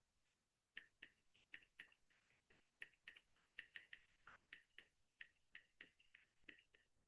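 Faint, irregular clicking of computer keys, several clicks a second, with short pauses between runs.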